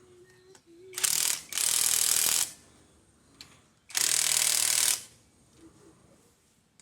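Impact wrench run in three bursts: a short one about a second in, a longer one straight after, and another about four seconds in.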